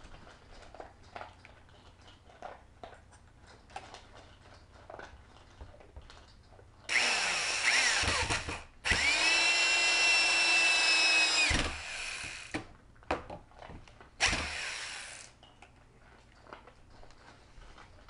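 Corded electric drill boring into a wooden frame rail. Faint handling taps come first, then the drill runs three times: a short burst, a longer steady run that spins up and winds down, and a brief burst.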